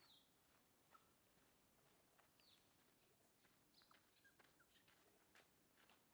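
Near silence, with a few faint, short, high chirps from small birds, each falling slightly in pitch, and scattered light ticks.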